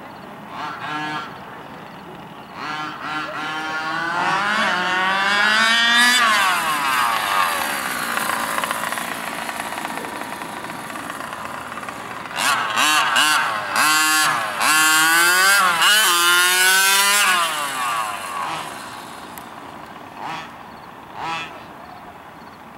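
HPI Baja 5SC 1/5-scale RC truck's small two-stroke petrol engine revving hard twice, its buzzing pitch climbing as the truck accelerates and then dropping away, with short throttle blips near the start and near the end.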